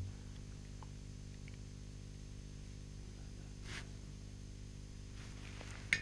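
Quiet steady low hum of room tone, with a faint brief rustle a little past midway and a single sharp click near the end.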